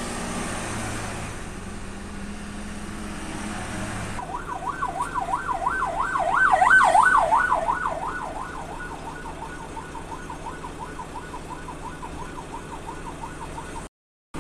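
A vehicle siren on a fast yelp comes in about four seconds in. It sweeps up and down three or four times a second, grows louder to a peak around seven seconds, then fades, over the steady run of stopped traffic and the truck's engine.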